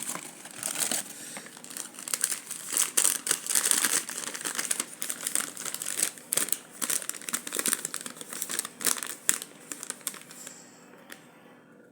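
Parcel packaging crinkling and rustling as it is handled and rummaged through, a busy run of irregular crackles that dies away near the end.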